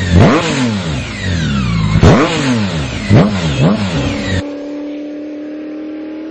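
BMW K 1600 GT's inline-six engine through an AC Schnitzer Stealth exhaust, revved in several sharp throttle blips, each rising fast and falling away. About four and a half seconds in, the engine sound cuts off suddenly and a steady held tone takes over.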